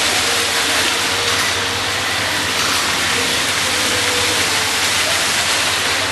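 Many vertical jets of a decorative fountain spraying and splashing back into the basin: a steady rushing hiss of falling water.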